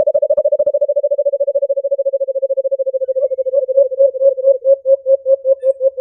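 Recorded call of a white-eared brown dove (alimukon), played back as a hunting lure: a long run of low cooing notes, very rapid at first and slowing into distinct, evenly spaced notes from about three seconds in.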